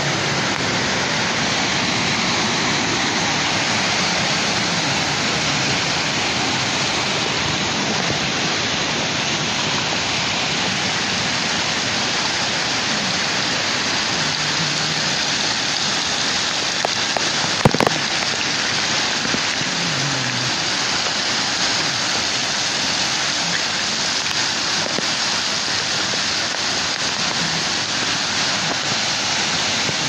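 Waterfall pouring and splashing over rocks, heard close up in the spray as a steady rush of falling water. A couple of brief knocks about halfway through.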